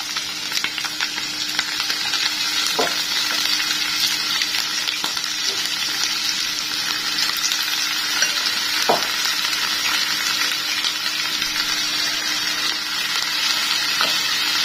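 Salted bitter gourd slices sizzling steadily in hot mustard oil in a pan, stirred now and then, with two short knocks about three and nine seconds in.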